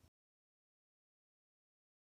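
Silence: a digitally silent pause with no sound at all.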